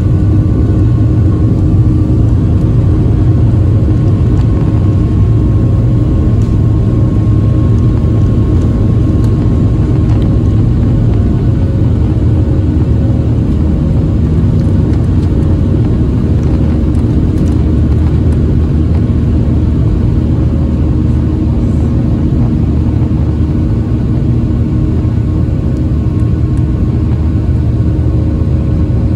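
Boeing 737's turbofan engines at takeoff thrust, heard from inside the cabin over the wing: a loud, steady roar and rumble with a steady engine whine, during the takeoff roll and lifting off before the end.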